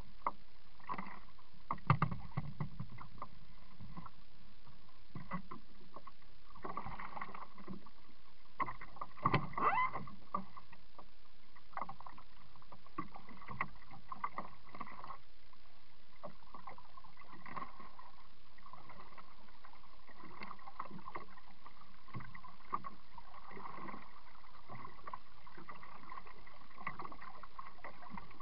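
Pelican 80 kayak being paddled: water swishing and sloshing with repeated short knocks of paddle strokes, muffled through a waterproof camera housing mounted on the hull. The loudest knocks come about two seconds in and again around nine to ten seconds in.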